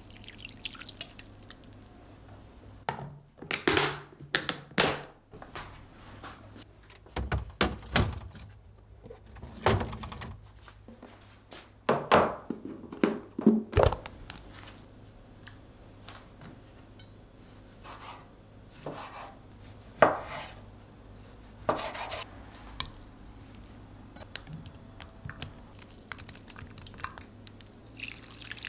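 Kitchen handling sounds: irregular knocks and clunks of dishes and utensils being handled and set down, several sharp ones between about three and fourteen seconds in and a few more later, with quiet between. Right at the end, marinade starts to pour through a mesh strainer into a glass dish.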